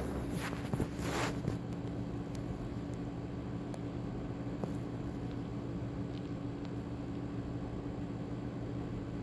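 A steady low machine hum in the room, with a couple of brief rustles in the first second and a half.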